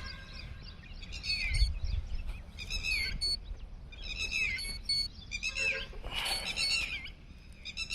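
Birds singing in repeated short chirping phrases with falling notes, over a low rumble, with one low bump about one and a half seconds in.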